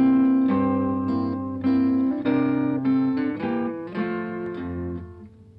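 Instrumental music: a melody of plucked guitar notes over a bass line, with each note dying away after it is struck. The music fades out near the end.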